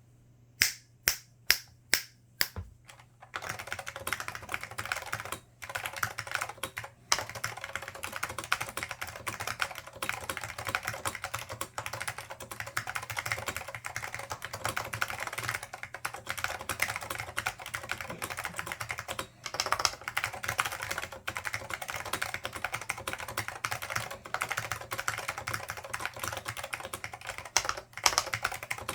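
Dell AT101 keyboard with lightly lubed Alps SKCM Black switches and Alps doubleshot keycaps being typed on. About five separate keystrokes come first, then steady fast typing with a few brief pauses.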